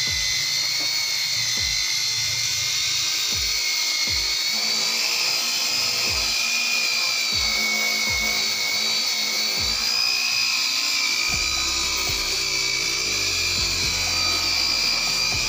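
Electric rotary polisher with a foam pad buffing compound into freshly dried car paint, its motor whining steadily and wavering slightly in pitch. Background music with a bass beat runs underneath.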